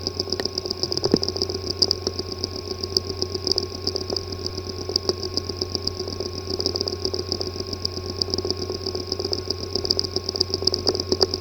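A hard drive with a physically damaged disk assembly (heads and platters) running with a steady hum and a fluttering high whine, under a fast, gritty ticking and a few louder clicks. This is the sound of failed internal mechanics, and such a drive cannot be read by a computer.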